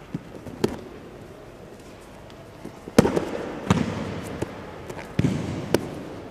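Aikido partners taking breakfalls on tatami mats as they are thrown: about five sharp slaps of bodies and hands hitting the mat, the loudest about three seconds in, with a short echo in a large hall.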